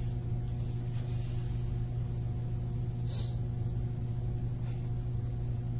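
Steady low electrical hum with a faint hiss, the room tone of the recording, with one short soft hiss about three seconds in.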